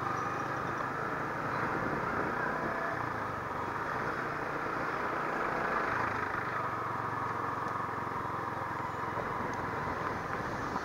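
Yamaha R15 V3's 155 cc single-cylinder engine running steadily as the motorcycle rides slowly through a busy street, with traffic and street noise around it.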